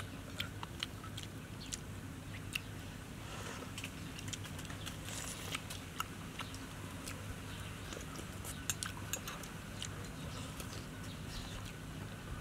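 Close eating sounds: metal spoons clicking against ceramic soup bowls, with chewing, over a steady low hum.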